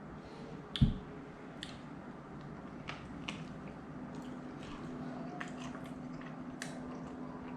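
A man chewing a mouthful of hot dog, with scattered soft wet clicks and smacks of eating and one low thump about a second in.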